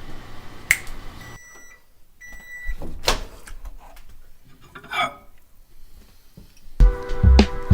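Microwave oven beeping twice, about a second and a half in, with clicks and knocks of handling around it. Music with a beat starts near the end.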